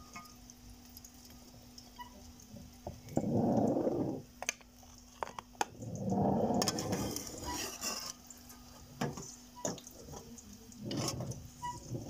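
Perforated steel skimmer clinking and scraping against a steel pan and plate as syrup-soaked jalebis are lifted out and set down: a few sharp clicks and three longer muffled handling noises, over a faint steady hum.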